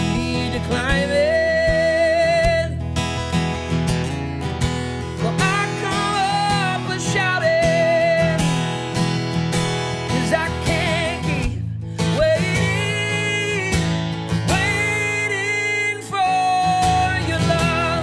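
A man singing over a strummed acoustic guitar, with several long held notes.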